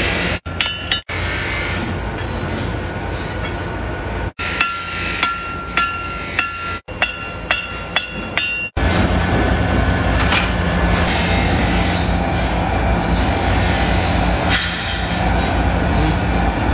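Hand hammer blows on hot steel over an anvil, each ringing, in quick runs of a few strikes a second across several short clips. About halfway these give way to a steady loud low rumble with a hum.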